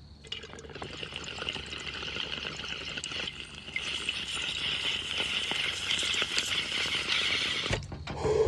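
Liquid flowing with a steady hiss that builds slightly, with small clicks throughout. A sudden louder low sound comes right at the end.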